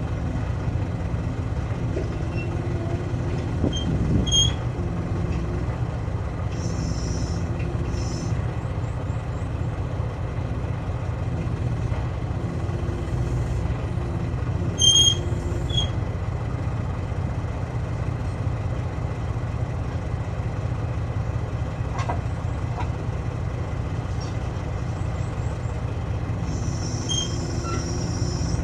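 Heavy engine running steadily at idle. Short hisses of air come about seven seconds in and again near the end, and a couple of brief high metallic rings are heard, the louder one about halfway.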